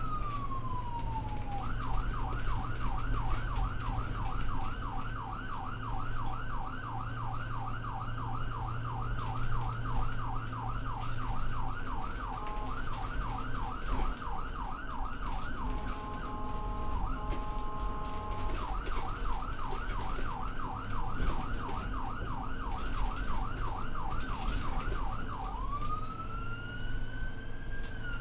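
Electronic ambulance siren cycling through its patterns: a falling wail, then a fast yelp of about four up-and-down sweeps a second, a short stretch of two steady alternating tones about two thirds of the way through, more yelp, and a slow rising wail near the end. A low steady hum runs underneath.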